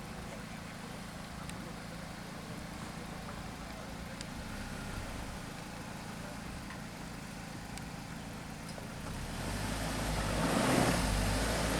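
An off-road 4x4's engine runs steadily, then grows louder over the last few seconds as the vehicle comes closer or is driven harder.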